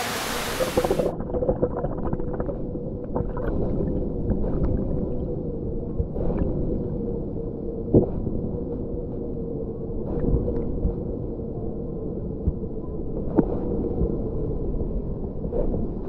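Waterfall and pool heard through a camera held underwater. About a second in, the open-air rush turns suddenly to a muffled low rumble with a faint steady hum, broken by scattered clicks and knocks.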